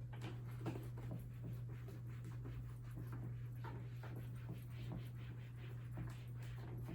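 Faint, short scratching strokes of writing on a board or paper, over a steady low electrical hum.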